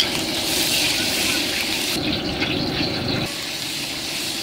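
Hot oil sizzling in a wok as a ladle and spatula stir it, a steady hiss with a low hum underneath that drops away about three seconds in.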